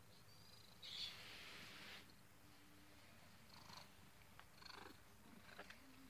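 Domestic cat purring faintly while being stroked. A brief rustle of fur and blanket comes about a second in, with softer rustles later.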